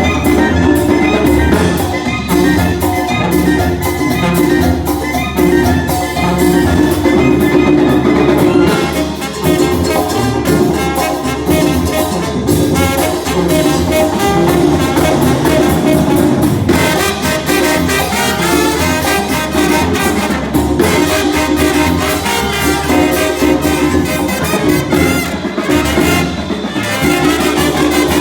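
A live band playing, led by brass (trumpets and trombones) over a steady percussion beat.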